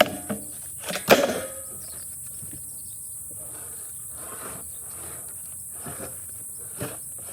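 Steady high insect chirring, with one sharp knock about a second in and a few fainter knocks and clicks later, one shortly before the end.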